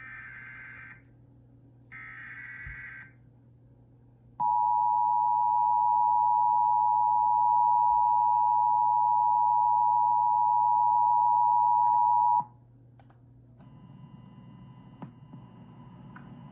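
Emergency Alert System broadcast opening: the last two buzzy data bursts of the SAME header, each about a second long and a second apart, then the two-tone EAS attention signal held steady for about eight seconds before cutting off sharply, with faint hum and hiss after it. This sequence signals the start of an emergency alert, here a flash flood warning.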